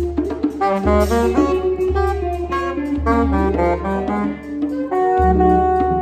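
Free-improvised ensemble music led by a saxophone playing quick runs of notes, then holding one long note about five seconds in. Low sustained notes sound underneath.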